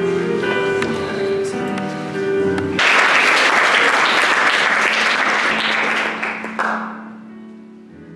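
Background music with plucked-string notes, broken off about three seconds in by loud applause that lasts about four seconds and then fades out; faint music returns near the end.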